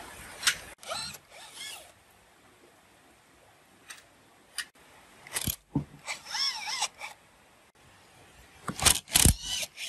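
Metal parts clink near the start. From about halfway on, a cordless driver with a long socket extension runs in several short bursts, its pitch wavering as it works rusty bolts loose, and the loudest burst comes near the end.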